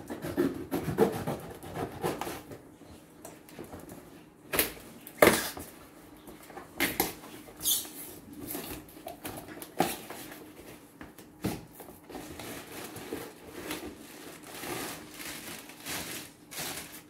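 Scissors cutting through the tape and cardboard of a box, then the cardboard flaps pulled open and a plastic bag crinkling as the contents are lifted out. It is an irregular run of scrapes, snips and sharp clicks.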